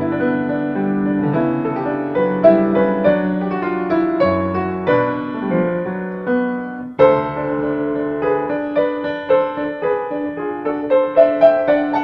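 Solo piano music playing, with a brief break about seven seconds in before a new phrase begins.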